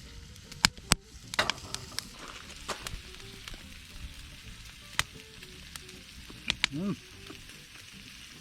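Food sizzling as it cooks, a steady hiss broken by sharp pops and crackles of spitting fat. A short squeaky rising-and-falling sound comes near the end.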